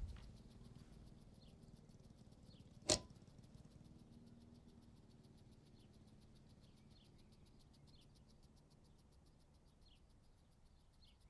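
Near silence: a low room hum with faint high chirps now and then, broken once about three seconds in by a single sharp click.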